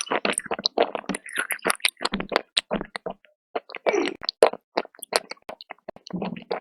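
Close-miked crunching as something hard and brittle is bitten and chewed: rapid, irregular crisp cracks and crackles with short chewing pauses.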